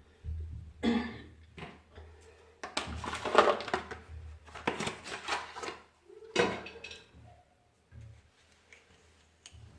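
Containers and utensils being handled: clatter, knocks and scraping of dishes and spoons, busiest in the middle, with one more knock a little after, over a low steady hum.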